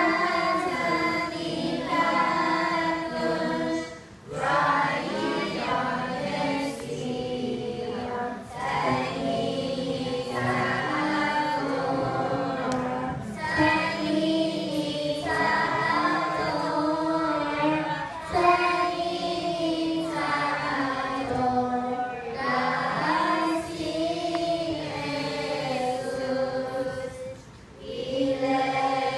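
A children's choir singing in unison, in phrases broken by short breaks for breath.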